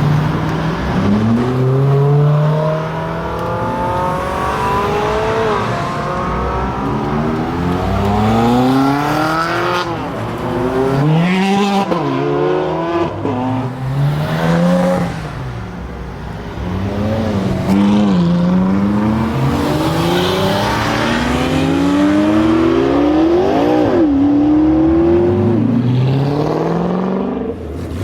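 Supercar engine revving hard through repeated accelerations, its pitch climbing and dropping again and again as it shifts gears and lifts off, with a brief dip near the end.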